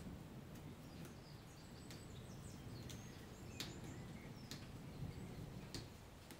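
Quiet rain ambience: sparse, sharp drip-like ticks over a low, even rumble, with faint high bird chirps in the first half.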